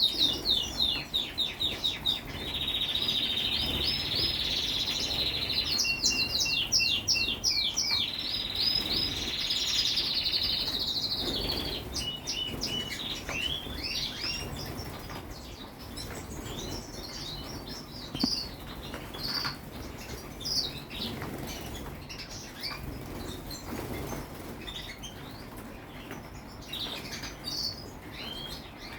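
Small birds chirping and trilling at a bird bath: a dense chorus of rapid high chirps and steady trills for the first ten seconds or so, then scattered single chirps.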